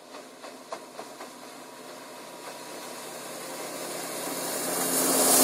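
A 150 hp Johnson V6 two-stroke outboard on a deck boat running at speed, growing steadily louder as the boat approaches and passes close by.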